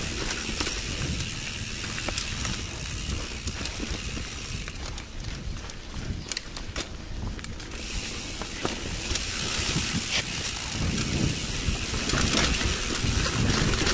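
Mountain bike coasting down a rough dirt trail: the rear hub's freewheel ratchet ticks while the bike rattles over roots and rocks, with tyre and wind rumble. The rattling grows louder over the last few seconds as the trail turns to rock.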